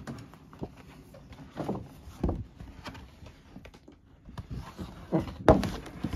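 A large folded flip-mat of stiff coated paper being unfolded and spread out across a wooden table: rustling and scraping handling noises in several short bursts, the loudest about five seconds in.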